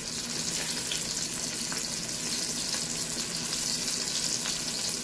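Flour-coated snapper and garlic cloves frying in hot oil: a steady sizzle with a few small pops.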